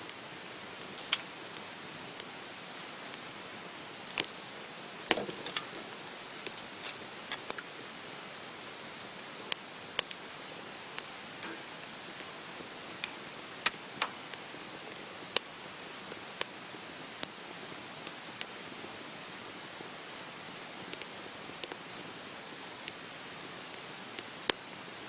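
Wood campfire crackling: irregular sharp pops and snaps, a few every second or two, over a steady hiss.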